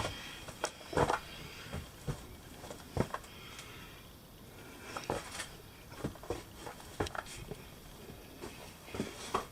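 Scattered light knocks and scuffs at irregular intervals, from a person moving about and handling gear in a small rock cave.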